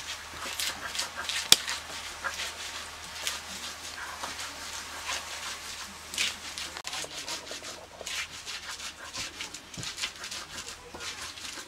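Stone grinding of spices on a flat grinding slab (Nepali silauto with a hand-held lohoro): irregular crunching and scraping strokes of stone over stone as the ingredients are crushed.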